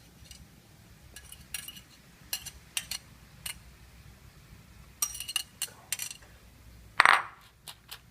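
Kitchenware clinking: irregular light clinks of utensils against dishes, with a cluster about five seconds in and one louder, ringing clink near the end.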